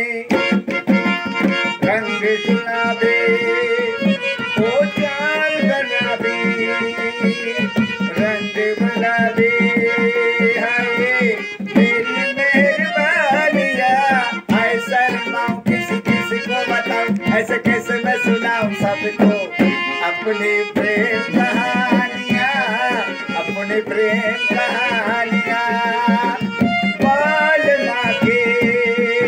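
Instrumental Indian music: a harmonium plays the melody while a tabla keeps a steady rhythm.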